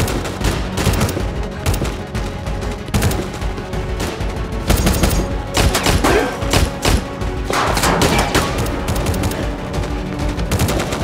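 Rapid volleys of rifle gunfire in a shootout, with steady dramatic music underneath.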